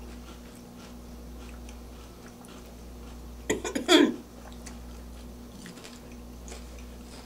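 People chewing crunchy potato chips: faint scattered crunches over a steady low hum, with one louder short vocal noise and crunch at about three and a half to four seconds in.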